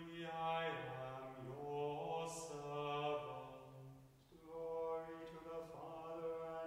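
Unaccompanied men's voices chanting a psalm to a plainsong tone, holding long notes on a reciting pitch with a few steps down and back up.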